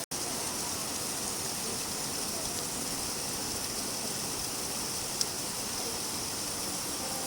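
Steady rain falling, an even hiss that cuts out for an instant right at the start, with a single light drip about five seconds in.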